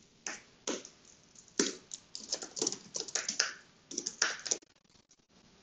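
Typing on a computer keyboard: irregular runs of keystrokes that stop about a second before the end.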